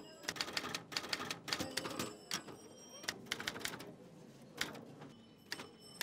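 Manual typewriter typing Bengali text: a quick run of clacking keystrokes for about four seconds, then a few slower, spaced strokes near the end.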